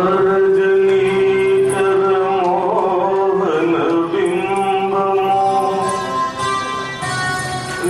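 A man singing a devotional song into a microphone, holding long notes and gliding between them over a steady accompanying drone.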